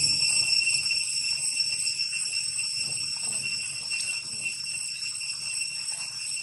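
Steady, high-pitched drone of forest insects, an even ringing tone that holds unchanged throughout.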